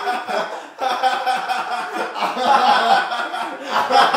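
Two men laughing hard and loudly together, with short breaks for breath about a second in and near the end.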